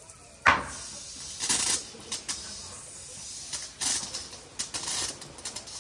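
Water spraying from a garden hose whose end is pinched with the fingers, hissing in uneven spurts as the grip changes, with one loud sudden burst about half a second in.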